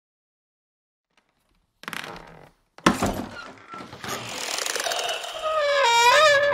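Horror intro sound effects: silence, then a short noise burst about two seconds in and a sudden loud hit a second later. After that a wavering pitched wail slides up and down and grows louder toward the end.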